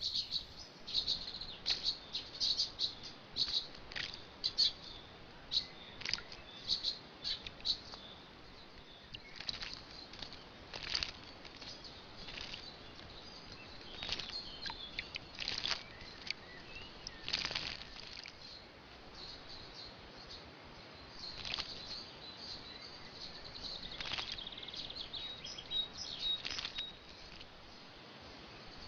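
Sparrows and other small songbirds chirping in quick, short, high calls, thickest in the first several seconds and more scattered after, with brief wing flutters among them.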